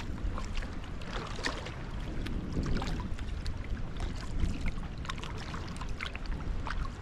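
Sea kayak being paddled: paddle blades dipping into the water with small splashes and drips at irregular intervals, over a steady low rumble.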